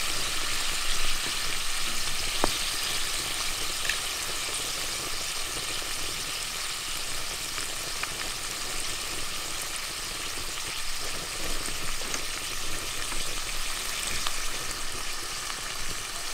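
Browned onions and water sizzling steadily in a cast-iron Dutch pot over hot charcoal briquettes: an even, hissing sizzle with a few faint ticks.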